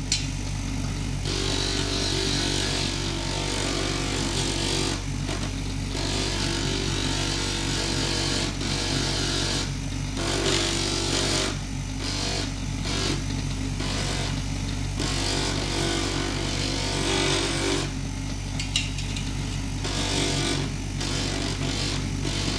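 Bench grinder running with a steady electric-motor hum while a small stone is pressed against its 1200-grit sanding disc, giving a hissing grind that starts and stops again and again as the stone is put to the disc and taken off.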